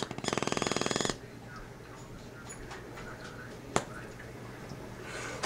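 Propane torch with HHO gas mixed into its intake: the flame flutters in a rapid, pulsing buzz for about a second and then stops abruptly, leaving a faint hiss. A single sharp click comes nearly four seconds in.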